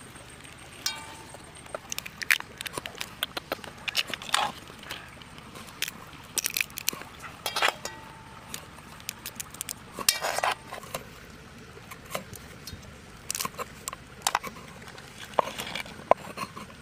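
Raw crabs being broken apart and cleaned by hand, giving irregular small cracks, snaps and crackles of shell, with occasional light clinks. Near the end come a few sharper taps of a knife on a wooden chopping board.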